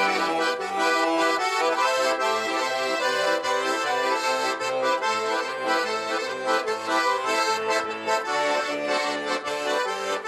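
Instrumental break in a pop song: an accordion plays the lead over a bass line and a steady drum beat, with no singing.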